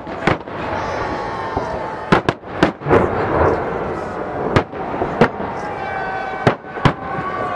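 Aerial fireworks shells bursting overhead: sharp bangs, mostly in quick pairs, about every two seconds, with a continuous noisy wash between them.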